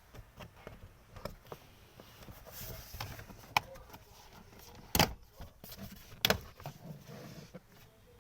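Scattered clicks and knocks, with three sharp bangs about three and a half, five and six and a quarter seconds in, and no steady fan sound.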